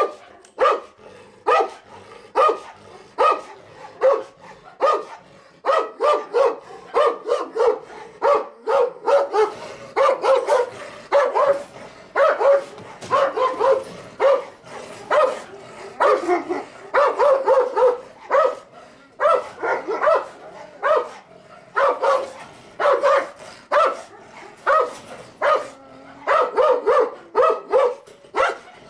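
Female Turkmen Alabai (Central Asian Shepherd Dog) barking in rapid, repeated volleys of two to three barks a second with short pauses: territorial guard barking during a guarding test.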